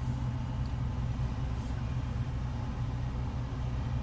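Steady low background rumble and hum, with a faint hiss and no distinct events.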